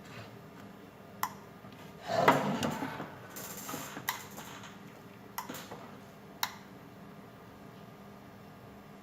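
Tools and parts handled at a workbench while new capacitors are soldered onto a motherboard: a few sharp clicks, a short clatter about two seconds in, and a brief hiss.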